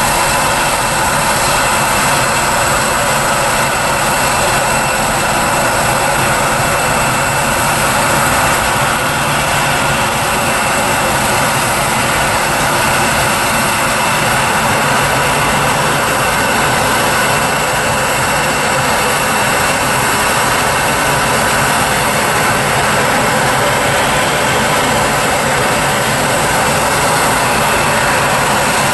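Jet engines running, a steady, unchanging rush with a faint high whine.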